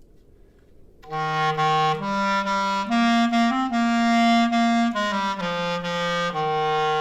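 A clarinet playing a short phrase in its low register. The notes step upward and then back down to the starting note, which is held at the end.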